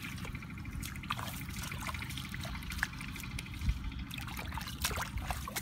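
Hands groping through shallow muddy water, with small splashes and wet squelches scattered throughout over a steady low noise.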